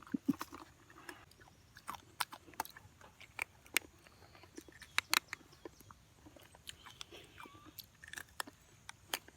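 Someone chewing crunchy food close to the microphone: irregular crunches and sharp clicks, with no steady rhythm.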